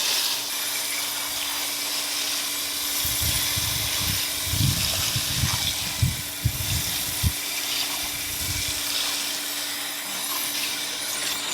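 Water from a garden hose pouring and splashing onto the soil of a planted container, a steady rush. Low thuds come and go through the middle.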